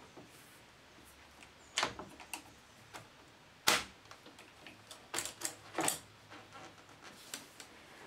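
Scattered metal clicks and knocks as a uPVC door's multipoint lock strip is slid and lifted into place in the door edge, with the loudest knock about halfway through.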